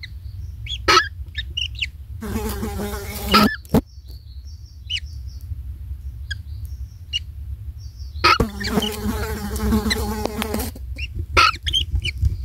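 A flying insect buzzing in three bouts, each a second or two long, with short high chirps and a few sharp clicks between them.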